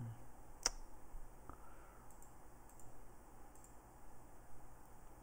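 Computer mouse clicks: one sharp click about half a second in, a softer one about a second later, then a few faint ticks, over a low steady hum.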